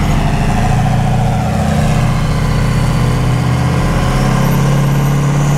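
Drag-racing truck's engine idling loudly and steadily, its low note shifting a little about four seconds in.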